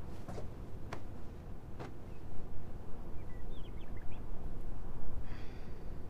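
Quiet room ambience with a steady low rumble and two soft clicks about one and two seconds in. A few faint high bird chirps come in the middle, and a soft breath near the end.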